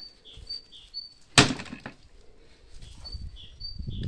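An axe strikes a piece of firewood once with a sharp crack about a second and a half in, splitting it, followed by softer knocks of split wood being handled. A small bird chirps in short repeated notes in the background.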